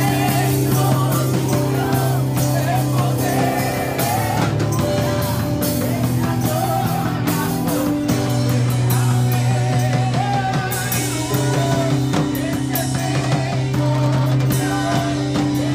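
Live worship band: voices singing a melody over held keyboard chords, electric guitar and a drum kit.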